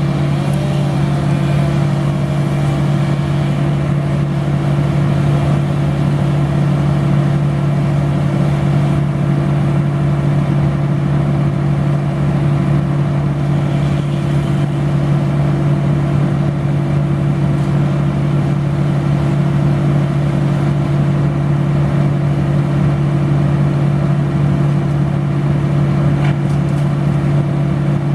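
A large engine running at a steady speed, with an unchanging drone.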